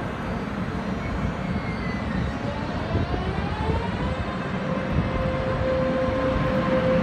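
Taiwan Railways EMU500 electric multiple unit pulling away from a station: its traction motor whine rises in pitch about two seconds in and then levels off, over a steady low rumble.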